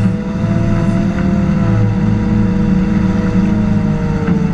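Caterpillar off-highway dump truck's diesel engine running as the truck drives, heard from its hood: a steady low drone whose pitch eases down a little after the middle.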